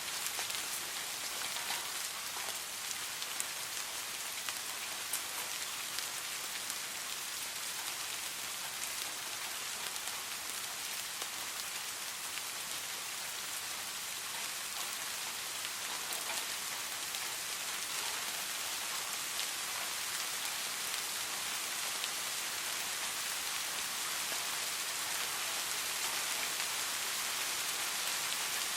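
Steady soft rain falling, a dense even hiss scattered with small drop ticks.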